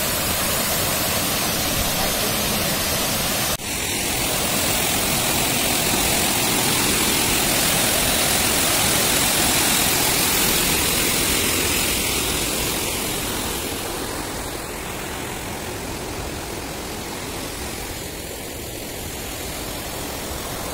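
Water from an ornamental cascade fountain pouring in a sheet down a wall into the pool below: a steady rush, loudest about halfway through and growing fainter over the last several seconds.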